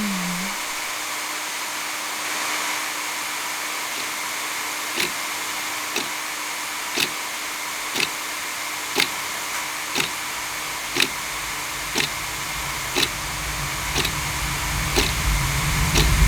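High-speed hair dryer blowing with a steady airy hiss and a faint steady hum. From about five seconds in, a sharp tick comes once a second, and a low rumble swells near the end.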